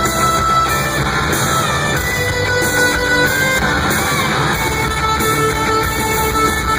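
Live hard-rock band playing an instrumental passage: electric guitar lines with pitch bends over bass and drums, heard loud and dense from the audience.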